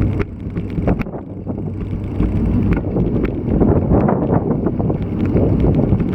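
Strong wind buffeting the action camera's microphone, a gusty low rumble, with scattered sharp clicks and knocks throughout.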